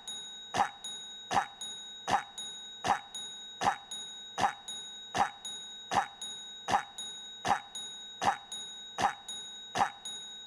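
A short cough sound effect looped over and over, one sharp cough about every three-quarters of a second, each one identical, with a steady faint high whine running underneath.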